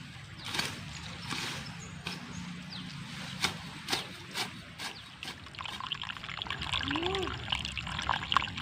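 Water trickling and babbling, coming in strongly about six seconds in, after a few sharp clicks or knocks.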